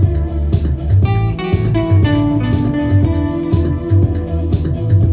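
Live band playing an instrumental groove: electric guitar lines over a bass guitar and drums, with regular cymbal hits keeping time.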